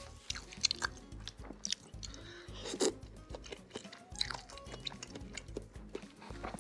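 Close-mic chewing and biting on seblak, a spicy Indonesian dish of softened crackers, instant noodles, meatballs and sausage, heard as many short, irregular clicks. Background music plays underneath.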